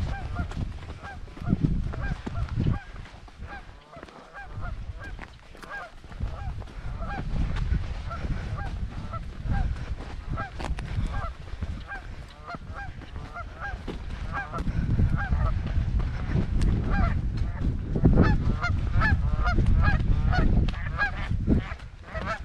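Goose honking over and over, several short calls a second, growing louder over the last few seconds, over a low uneven rumble.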